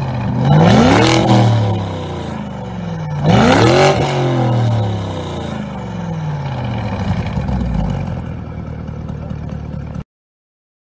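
Lamborghini Urus twin-turbo V8 revved while stationary through a titanium cat-back exhaust with sport 200-cell downpipes: two quick blips, rising and falling in pitch, then it settles back to a lower running note with a smaller rise. The sound cuts off suddenly near the end.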